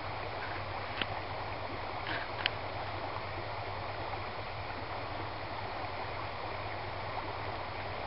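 Shallow forest stream flowing and rippling over sunken logs, a steady rushing wash of water, with a few short sharp ticks about one and two and a half seconds in.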